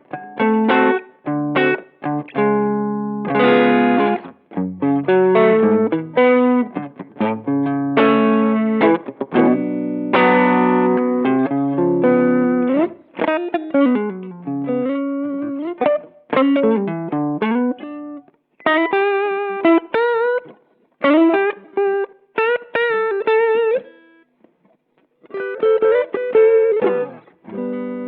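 Electric guitar played through a Boss SD-1 Super Overdrive pedal, giving a mid-forward overdriven tone. Chords and riffs give way about halfway through to string bends and held single notes with vibrato; after a short pause near the end, chords come back.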